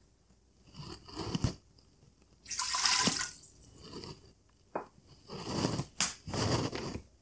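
About a cup of water being poured into a stainless-steel Instant Pot inner pot in a few short pours with pauses between; this is the water that goes in before pressure cooking.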